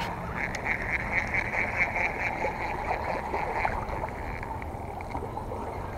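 Spinning fishing reel being cranked: a rhythmic whirring that stops about four seconds in.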